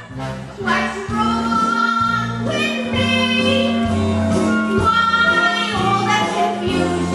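A woman singing a show tune with long held notes, over instrumental accompaniment with a steady bass line.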